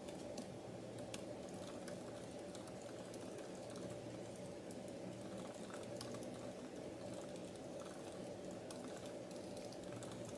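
Typing on a laptop keyboard: a quick, irregular stream of light key clicks over a steady low hum.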